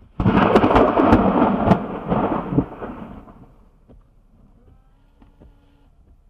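A close thunderclap: a sudden loud crackling crash about a quarter of a second in that rumbles on for a couple of seconds and fades out by about four seconds in.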